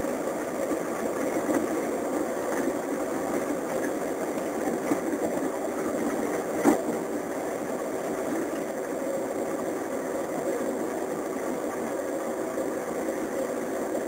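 Steady engine and road noise heard from aboard a moving vehicle, with one sharp click about halfway through.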